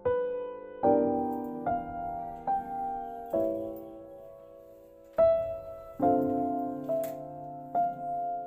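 Background music: slow piano, chords and single notes struck about once a second and left to ring and fade.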